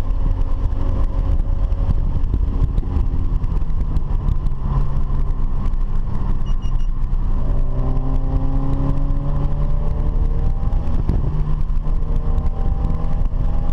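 Car engine repeatedly revving up and dropping back, climbing in pitch over a few seconds each time, over steady heavy road and wind noise.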